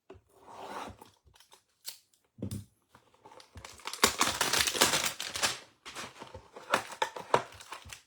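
A trading-card hanger box being torn open by hand, with cardboard tearing and wrapping crackling in uneven stretches that peak around the middle.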